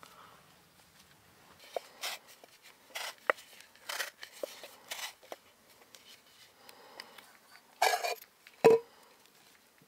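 Handling noises: irregular light clicks, knocks and short rustles, the loudest a dull knock near the end.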